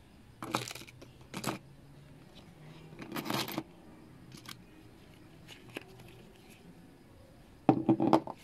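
Small carburetor parts and tweezers being handled in a clear plastic bowl: a few brief clicks and rustles of metal pieces and rubber gloves against the plastic, with a louder cluster near the end.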